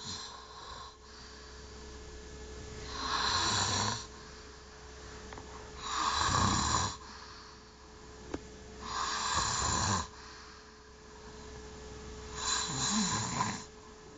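A man snoring in his sleep: four snores about three seconds apart, each lasting about a second.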